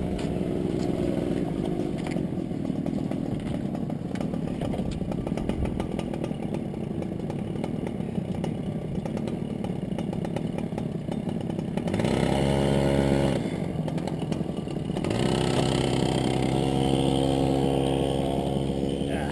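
Supermoto motorcycle engine idling with rapid, chattering firing pulses close to the microphone. A steadier, clearer engine note comes in briefly about twelve seconds in and again from about fifteen seconds on.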